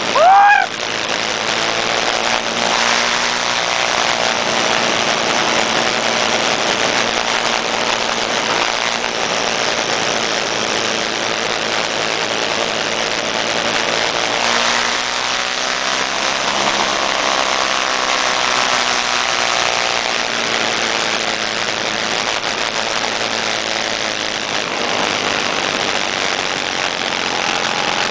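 Several small scooter engines running and revving up and down together over a steady rushing noise of riding. About half a second in there is one brief, loud note that rises and falls in pitch.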